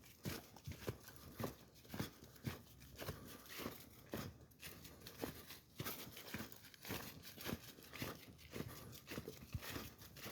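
Footsteps crunching on a trail, about two steps a second.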